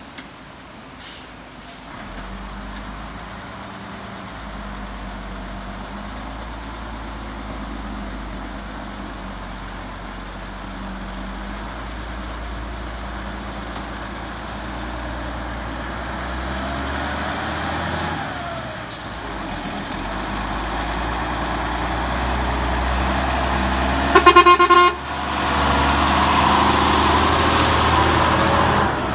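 Heavy Volvo diesel truck's engine running, growing steadily louder as it approaches and passes close by. A loud horn blast of about a second comes roughly three-quarters of the way through.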